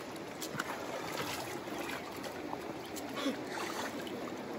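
River water rushing steadily, an even hiss of current with a few faint short splashy sounds in it.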